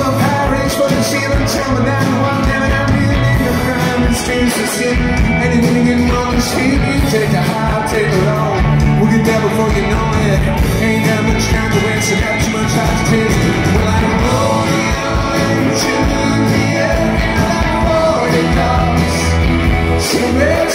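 Live rock band playing a song: male lead vocals over electric guitar, bass guitar, keyboard and drums, with a steady beat.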